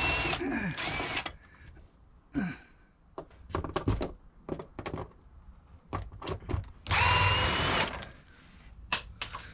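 Power drill run in two short bursts of about a second each, one at the start and one about seven seconds in, its motor whine rising as it spins up, while the old roof vent's sleeve is being taken out. Between the bursts come scattered clicks and knocks of parts being handled.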